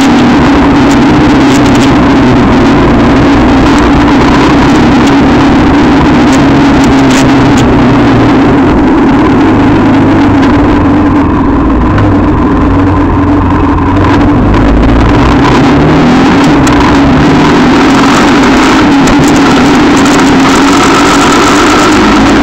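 Quad bike engine running while riding along a road, loud, its note shifting up and down with the throttle; it eases off for a few seconds around the middle, then picks up again.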